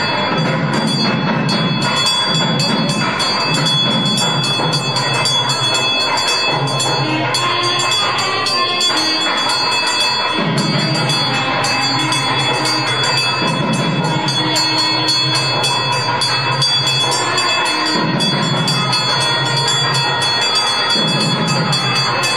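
A temple hand bell rung continuously in fast strokes, its high ringing tones held steady throughout. Beneath it, low male voices chant in phrases of about two seconds.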